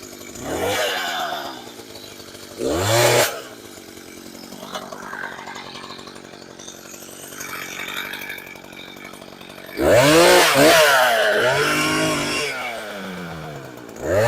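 Gas chainsaw revved up in several bursts, its engine pitch climbing and dropping, with the saw running at a lower steady speed between the bursts; the longest burst comes about two-thirds of the way through.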